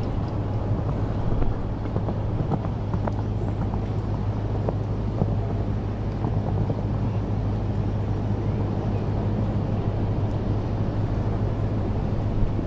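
Steady low rumble of wind and outdoor background noise on the camera microphone, with a few faint scattered ticks.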